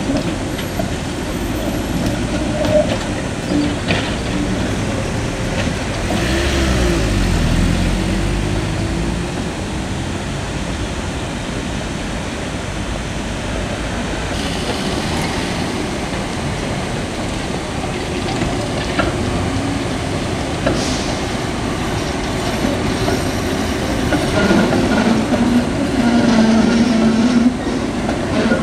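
Konstal 105N trams running along the street track, their wheels rumbling over the rails, mixed with passing road traffic. About six seconds in, a tram's traction motors whine up and down in pitch, and near the end a steady motor whine comes up as a tram pulls past.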